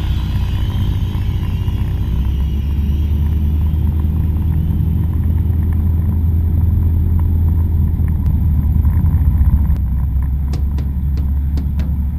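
A single-engine light aircraft's piston engine and propeller running steadily at low taxi power, a constant low drone heard inside the cabin. A few light ticks come in the last two seconds.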